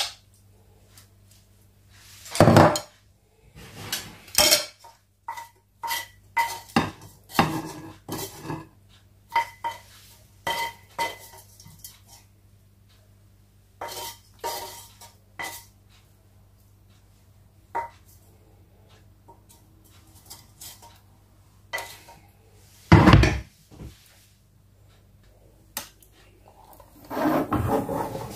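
Dishes and cutlery clinking and knocking together in irregular clatters, some strikes leaving a short ringing tone, with a heavier knock late on and a longer clatter near the end. A low steady hum runs underneath.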